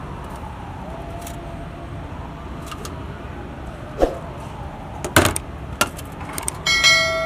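A few sharp metallic knocks and clatters from steel lids and plates being handled, over steady stall background noise. Near the end comes a clicking and a ringing bell-like ding, the sound effect of a subscribe-button animation.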